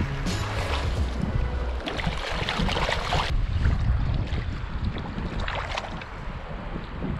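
Wind buffeting the microphone over the splashing and trickle of shallow river water as hands work a trout in a landing net.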